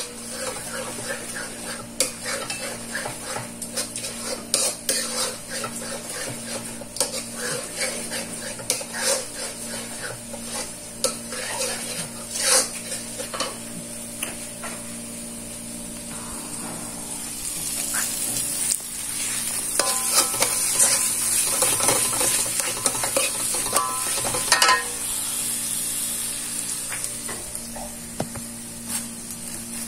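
Spatula scraping and knocking against a black wok, over the steady sizzle of food frying. The sizzle swells louder for several seconds past the middle, then settles with only occasional clicks of the spatula.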